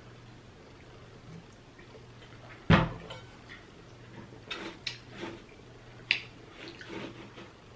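Close-miked eating sounds: one loud knock about three seconds in, then a run of short clicks and wet smacks.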